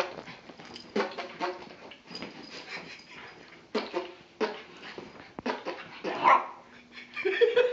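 Shiba Inu dog whining and yipping in short, irregular bursts, with a longer held call near the end.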